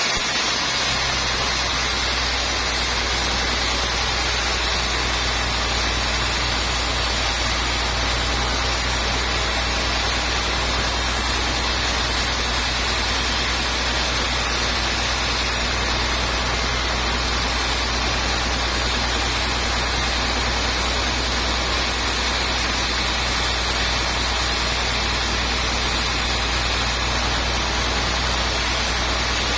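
Sawmill machinery running steadily, with a constant low hum under an even rushing noise that does not change.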